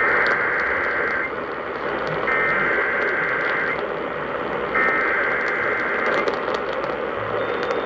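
Emergency Alert System SAME header: three bursts of warbling data tones, each a little over a second long and about a second apart, over steady radio static. These are the digital code bursts that open an EAS alert.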